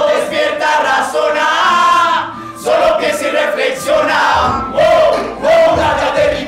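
A group of young men and women chanting and shouting together in unison as a hip hop chorus, in loud, repeated rising-and-falling calls.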